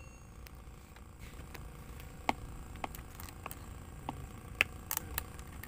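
Handling noise close to the microphone: about ten short, sharp clicks and taps scattered irregularly, the loudest about two seconds in and again about four and a half seconds in, over a faint steady background.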